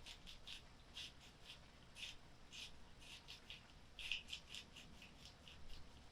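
Pot of chicken sotanghon soup boiling: faint, irregular little bubbling pops, several a second.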